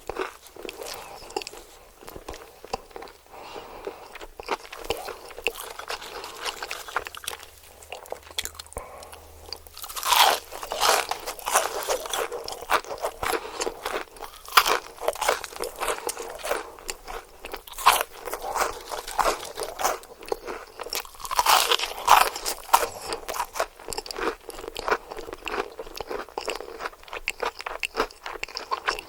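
Close-miked eating of crispy KFC fried chicken: soft chewing at first, then from about ten seconds in loud, dense crunching bites of the breaded coating.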